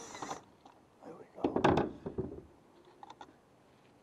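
Hands handling the light bar's wiring close to the microphone: rustling and scraping, with a louder burst about halfway and a few small clicks later.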